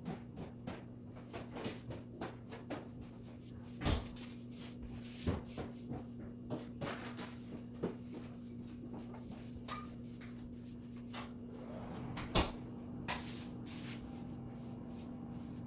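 Wide flat paintbrush laying paint onto a side table: a run of quick taps and light clicks from the brush strokes, with a few louder knocks, the loudest about four seconds in and near twelve seconds.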